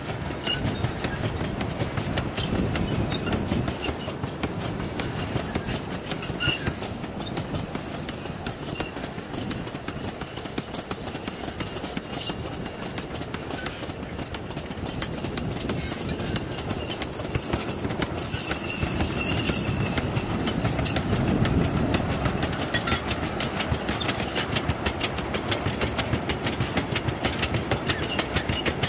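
Loaded sugarcane bins of a narrow-gauge cane train rolling past, their steel wheels clattering continuously over the rail joints. A brief high squeal comes about two-thirds of the way in.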